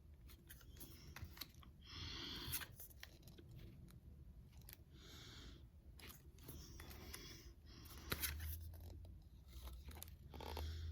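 Pokémon trading cards and pack wrapper being handled: a string of short rustles and slides, card against card, every second or two, with light clicks and taps in between.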